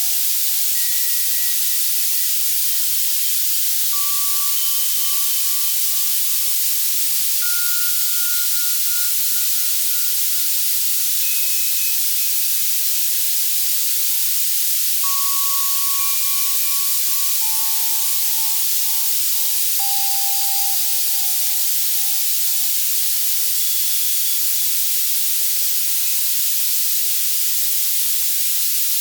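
Access Virus C synthesizer playing steady white noise, a constant hiss brightest in the treble, for tinnitus masking. Over it, sparse synthesized bell tones at changing pitches each ring out and fade over a second or two.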